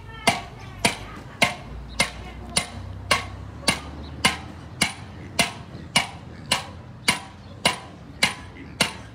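Hand hammer striking a copper kettle body being shaped by hand, about two blows a second in a steady rhythm, each blow a sharp knock with a short metallic ring.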